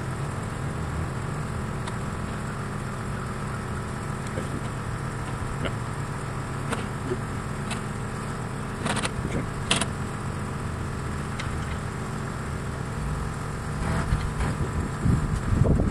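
Engine of a truck-mounted boom running steadily at idle, a low even hum, with a couple of sharp clicks about nine and ten seconds in.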